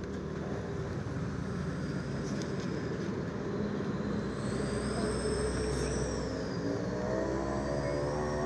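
A motor vehicle engine running, growing gradually louder, with its pitch starting to rise near the end as it speeds up.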